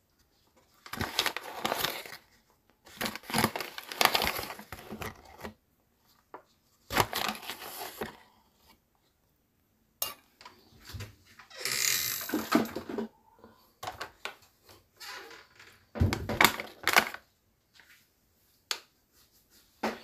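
A hand picking through and squeezing raw chicken livers and gizzards in a plastic crate, making irregular wet handling noises in bursts of a second or two.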